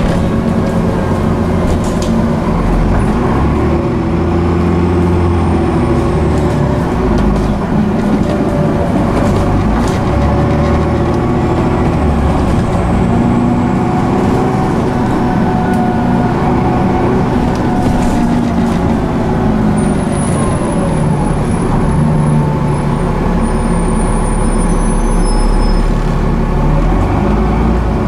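Cummins ISCe straight-six diesel engine and Voith D851.3E automatic gearbox of a Transbus ALX400/Trident double-decker bus, heard from inside the bus while driving. The engine note rises and falls repeatedly as the bus pulls away and changes gear.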